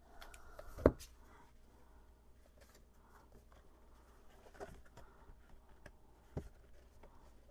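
Paper coloring books being handled and leafed through: a few soft knocks, the sharpest about a second in and another near the end, over a faint hiss.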